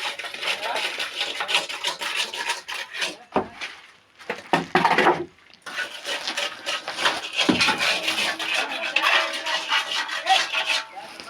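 A mason's trowel scraping and spreading cement mortar on brickwork: dense runs of rapid rasping strokes, with two short breaks near the middle.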